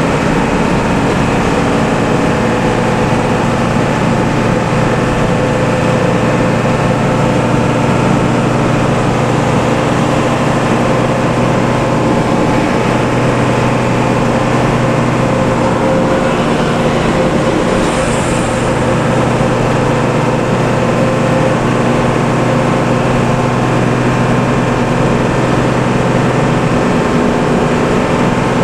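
Bus engine and loud exhaust droning steadily while the bus is under way, holding a constant pitch with no revving.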